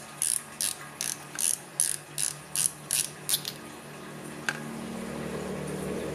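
Clicking detents of a Shimano Ocea Conquest baitcasting reel's side-plate cap (the spool tension knob housing the spool bearing) as it is twisted off by hand: a run of about a dozen sharp clicks, roughly two and a half a second, stopping about three and a half seconds in, then one more click about a second later.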